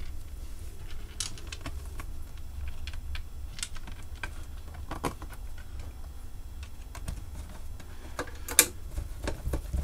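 Scattered small clicks and taps of a plastic speaker case being handled and screwed back together, with one sharper click near the end, over a steady low hum.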